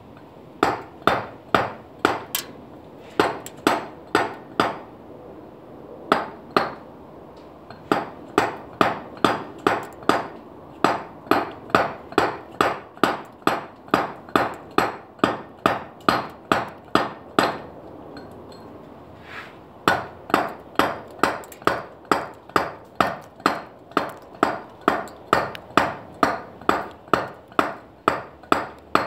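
Round-headed dummy mallet striking a hand chisel into limestone. Sharp, regular strokes come about two a second, in runs broken by short pauses.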